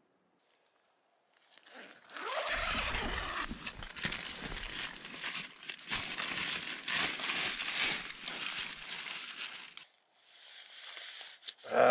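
Tent nylon and gear rustling and crinkling as a backpack is handled and unloaded at a tent doorway, with scattered sharp clicks and knocks. It starts about a second and a half in and eases off briefly near the end.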